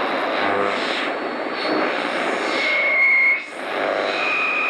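Whooshing intro sound effects, jet-like, swelling and fading in waves with a sharp dip about three and a half seconds in, and two short high tones in the second half.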